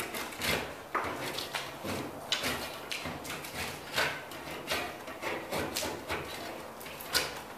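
Drywall knife scraping along a ceiling seam in repeated short strokes, metal blade on drywall.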